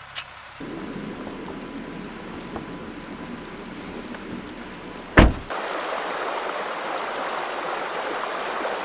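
Steady rushing noise of a snowstorm, its character shifting abruptly twice, with one sharp thump about five seconds in.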